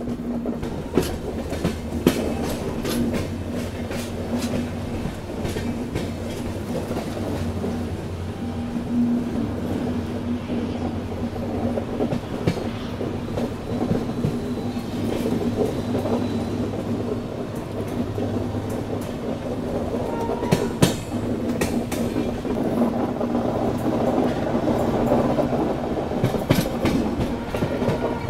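Passenger train running along the track, heard from on board: a steady rumble and hum with irregular sharp clacks of the wheels over rail joints.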